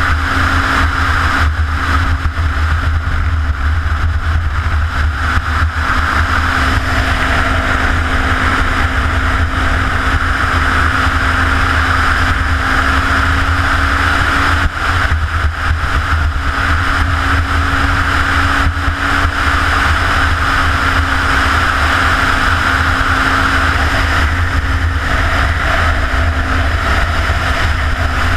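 Motorcycle engine running at a steady road speed, holding an even pitch, with heavy wind rumble on the on-board camera's microphone.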